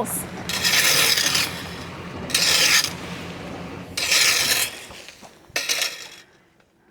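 A slow-moving vehicle's engine hums low and steady, then fades away, under four loud rasping, rustling bursts about a second and a half apart.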